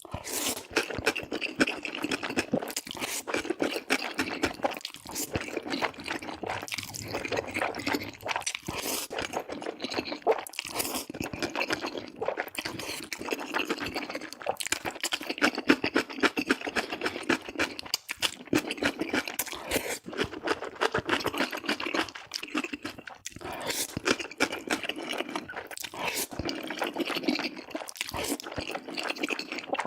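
Wet chewing and slurping of noodles: a dense run of sticky mouth clicks and smacks, with no pause.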